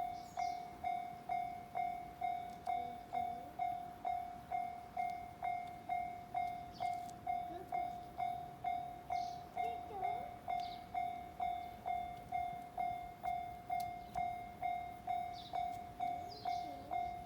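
Japanese railway level-crossing warning bell ringing, an even electronic ding about one and a half times a second, each strike dying away before the next.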